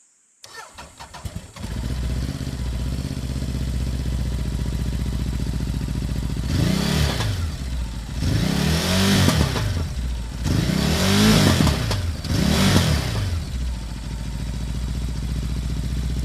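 Ducati Multistrada 950's 937 cc L-twin engine cranking on the starter and catching, then idling. Four blips of the throttle follow, each rising and falling in pitch, before it settles back to idle.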